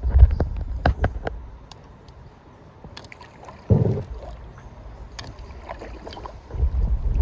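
Paddle strokes from a packraft: water splashing and dripping off the paddle with small knocks and clicks, coming in surges at the start, near the middle and near the end.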